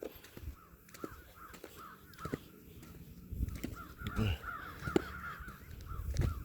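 Birds calling outdoors: a run of short, repeated calls, thickest about halfway through, with scattered low knocks.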